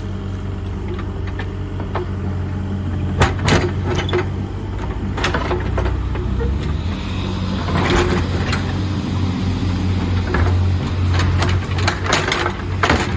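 Excavator's diesel engine running steadily under load while the bucket bends back the cut-open lid of a steel underground oil tank, with sharp metal clanks and scrapes several times, most about three seconds in, around eight seconds, and near the end.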